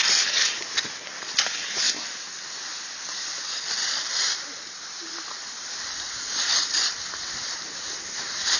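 Cross-country skis hissing as they glide over snow, in swells about every two seconds, with a few sharp clicks in the first two seconds.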